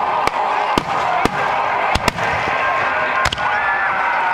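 Aerial fireworks shells bursting: about half a dozen sharp bangs at uneven intervals, over a steady murmur of the watching crowd's voices.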